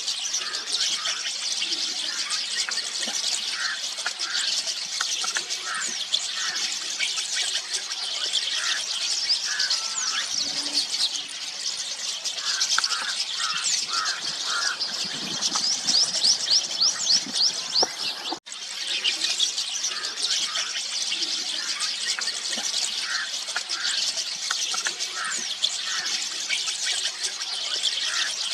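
A flock of rosy starlings chattering: a dense, continuous mix of rapid high squeaky chirps and squeals from many birds at once. It breaks off for a moment about two-thirds of the way through, then resumes.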